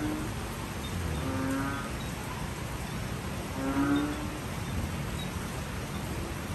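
Banded bullfrogs calling during steady rain: short, low calls about half a second long, two of them, about one and a half and four seconds in, over an even hiss of rain.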